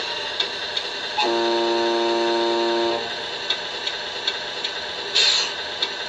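A truck air horn sounds once, held for nearly two seconds, from the RC Oshkosh HET model's sound unit, over a steady hum with faint ticking. A short hiss comes about five seconds in.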